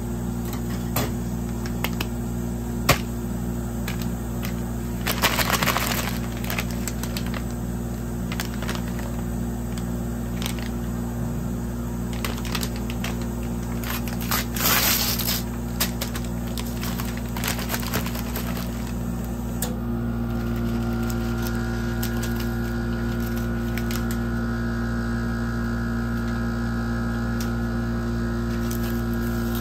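Steady electrical hum of a rolled-ice-cream machine's cold plate running, with a few more tones joining about two-thirds of the way through. Chocolate-bar wrappers crinkle and click under gloved hands in two short bursts, about five seconds in and near the middle.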